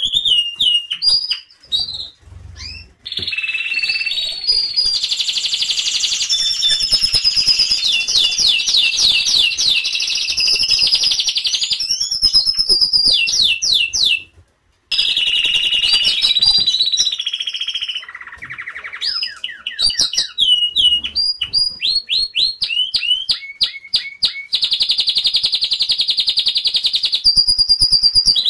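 Domestic canary singing a long, loud song of rolling trills and runs of rapid sweeping whistled notes, with a brief break about halfway through.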